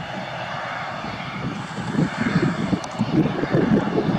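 Twin turboprop engines of an ATR 72 airliner running as it taxis, a steady rumble and hiss with a fluttering low throb that grows louder about halfway through.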